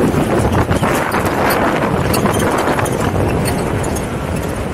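Jeep driving over rough off-road ground: a steady low rumble under an irregular clatter of knocks and clicks from the tyres and chassis working over the terrain.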